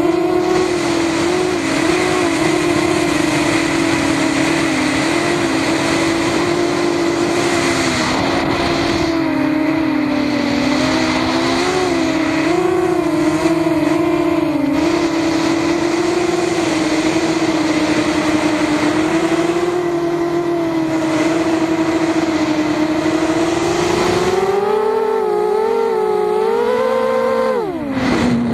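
Racing quadcopter's motors and propellers whining steadily, the pitch wavering up and down as the throttle changes. Near the end the whine climbs, then drops sharply in pitch for a moment as the quad tumbles.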